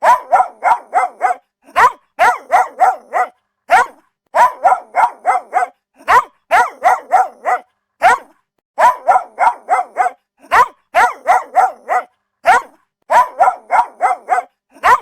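Dog barking in quick runs of four or five sharp barks, each run led by a single bark, the pattern repeating over and over.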